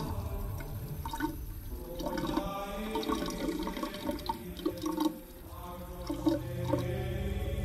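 Experimental music made of synth and sound effects: a water-like wash of noise with short, scattered tones. A low hum swells in near the end.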